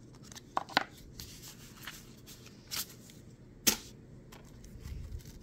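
Pokémon trading cards and packs handled on a table: soft rustling and sliding with a few sharp clicks, two close together under a second in and a louder one a little after halfway.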